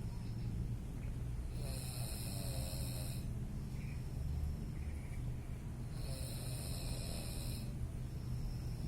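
A person snoring in sleep: a steady low rumble, with a longer hissing breath that comes twice, about four and a half seconds apart.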